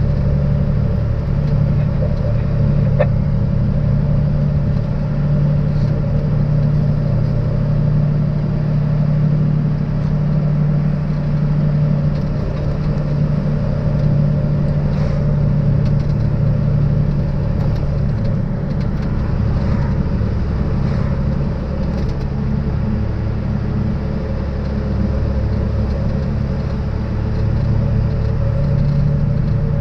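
MAN truck's diesel engine running steadily while the truck drives, a low even drone that holds throughout.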